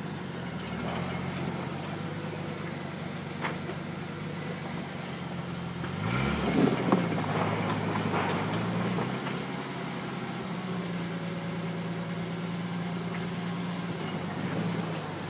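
Engine of an off-road rock crawler running at low speed as it crawls over boulders. About six seconds in it revs up briefly, with a couple of sharp knocks, then settles to a steady, slightly higher note.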